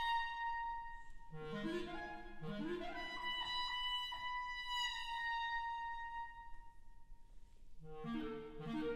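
Solo clarinet with a wind band, live in concert: the clarinet holds a long high note that slowly fades, while the band plays rising figures underneath about a second in, again shortly after, and near the end.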